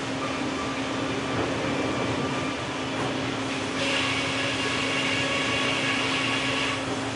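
Circle-saw sawmill machinery running with a steady hum. A higher whine comes in about four seconds in and stops about three seconds later.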